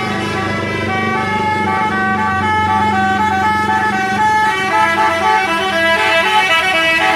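A bus's basuri telolet horn playing a tune: a run of held horn notes stepping up and down in pitch, one after another.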